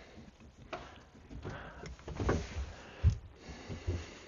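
A few irregular knocks, bumps and clicks of things being handled, with no steady pump running; the loudest knock comes about three seconds in.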